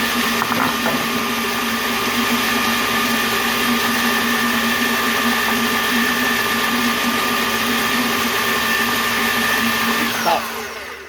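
Electric blender motor running steadily while blending Oreo crumbs with melted butter, then switched off about ten seconds in, its whine falling as it spins down.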